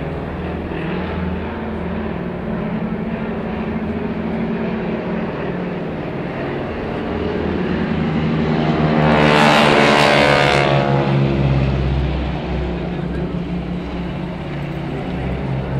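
Engines and propellers of two aerobatic biplanes running overhead. The sound builds to a loud close pass about nine seconds in and falls away after about eleven seconds.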